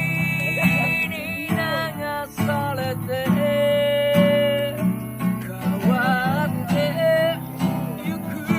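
A man singing to a strummed acoustic guitar, with one long held note in the middle.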